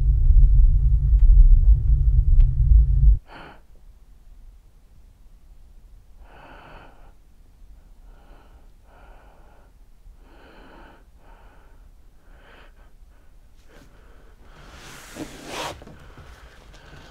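A deep, low rumble cuts off suddenly about three seconds in. What follows is a man's quiet, uneven breathing: short breaths and gasps about every second, with a longer, louder gasp near the end.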